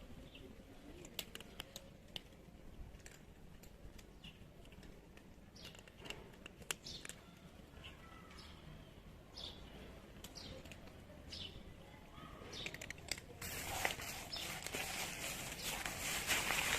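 Faint scattered bird chirps and small clicks, then a broad rushing noise that swells up over the last few seconds.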